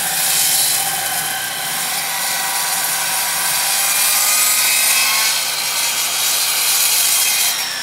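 Makita circular saw cutting through a full 4-inch-thick wooden beam, deeper than its blade reaches, running steadily under load. Near the end it is let off and the blade starts spinning down with a falling pitch.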